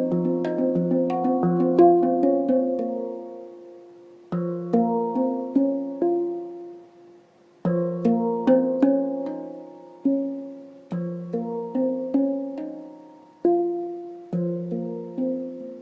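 Harmonic Sound handpan in B-flat minor, played by hand: phrases of struck notes that ring on and fade, each phrase starting with a louder stroke after a brief lull, with one near-pause about seven seconds in.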